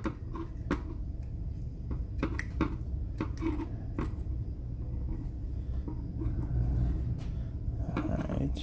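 Scattered small clicks and scrapes of a screwdriver and fingers working the metal clip and wire terminal that hold the thermal fuse inside an opened steam iron, over a steady low hum.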